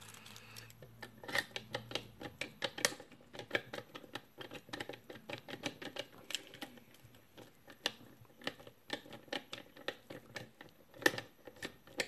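Brass lock cylinder worked with its key: many quick, irregular clicks and rattles as the key goes in and out and turns, the pins clicking over the cuts. One louder click comes about 11 seconds in. The key turns a bit sticky in the lock.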